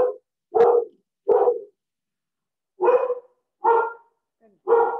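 A dog barking six times: three short barks in quick succession, a pause of over a second, then three more.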